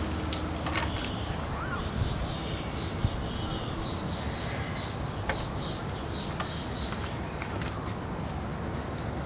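Outdoor ambience: a steady background hiss with scattered short bird chirps and a few sharp clicks.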